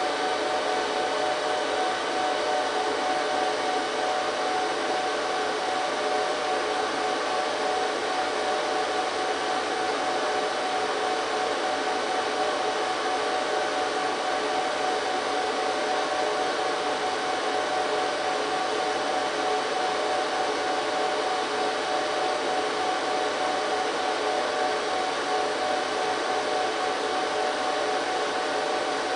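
HP ProLiant DL380 G3 server's cooling fans running during its power-on self-test: a steady whir with several steady whining tones on top.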